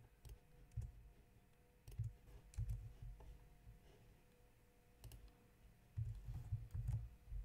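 Faint computer keyboard typing: scattered keystrokes in short irregular bursts, the busiest cluster near the end.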